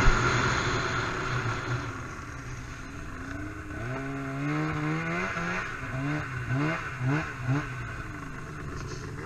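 A snowmobile knocks over a small rock with a sharp bang right at the start, then runs on with a fading hiss. From about three and a half seconds in, its engine revs up and then gives a series of short throttle blips about twice a second.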